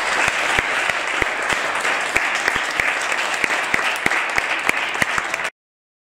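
A room of about a dozen seated people applauding, a dense patter of hand claps that cuts off abruptly about five and a half seconds in.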